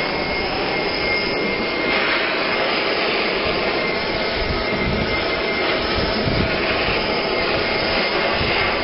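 Hand-held propane torch burning with a steady rushing roar, its flame played over a plastic barrel to heat out surface scratches.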